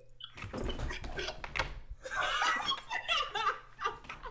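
A young man laughing hard, in several bursts.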